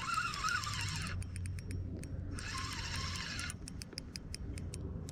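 Fishing reel working while an angler fights a hooked bass: two whirring stretches of about a second each, then light scattered clicking.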